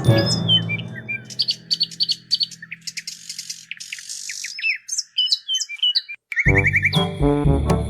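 Birds chirping in quick short calls, each a rapid high rise or fall in pitch. A music chord dies away at the start, and loud music comes back in about six and a half seconds in.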